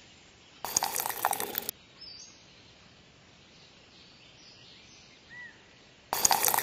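Two short bursts of rattling and scraping, about a second in and again near the end, from a small tin toy wheelbarrow being handled and tipped on sand. Faint bird chirps in between.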